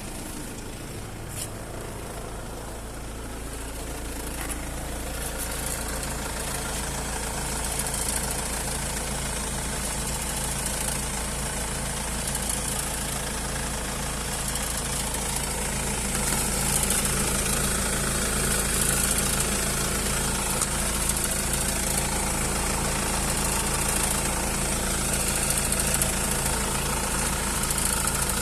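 Mercedes OM651 four-cylinder diesel engine running steadily, making the odd noise from the front of the car that the owner is trying to identify. A high hiss over the engine grows louder about halfway through.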